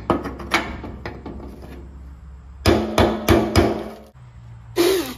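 Hammer driving a brass punch against a fuel tank sending unit's lock ring to knock it loose. A few light taps come first, then four hard strikes in quick succession about two and a half seconds in.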